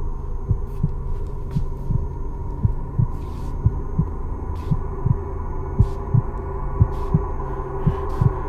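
Slow heartbeat on the film's soundtrack, a double thump about once a second, over a steady low hum.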